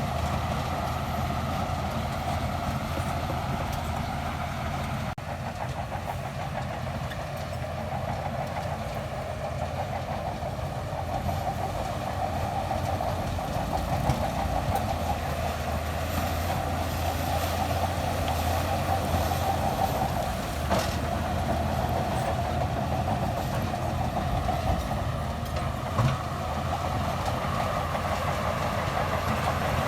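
Shantui DH17C2 crawler bulldozer's diesel engine running steadily under work, with a few short metallic knocks.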